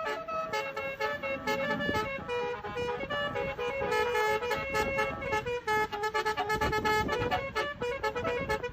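Basuri telolet bus horn, a multi-tone air horn, playing a quick tune of short stepped notes over a low rumble.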